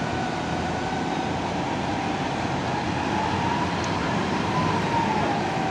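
Heavy diesel machinery running: a Kalmar reach stacker holding a container aloft and a Hino FG truck pulling forward beneath it. A whine rises and then falls back about three to five seconds in.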